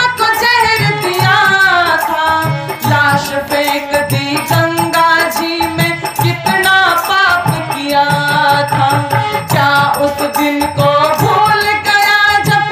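A bhajan performed live: a woman's voice singing over harmonium, with a dholak drum keeping a steady beat.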